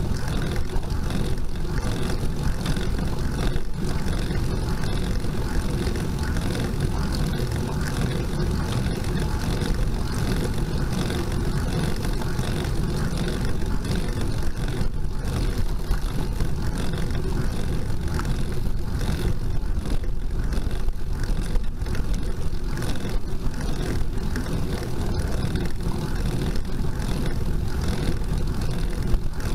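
Steady low rumble of wind and road noise on a bicycle-mounted camera's microphone while riding.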